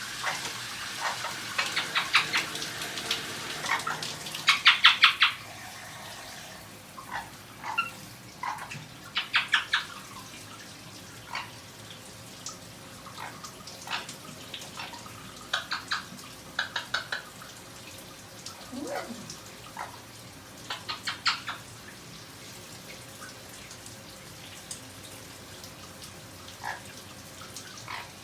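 A parrot drinking water from a person's mouth, its beak and tongue making runs of quick wet clicks, several a second, with pauses between the runs.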